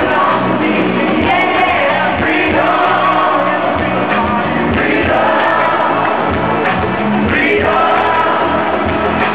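Live pop song played by a band with a male lead singer, heard from among the audience at a concert.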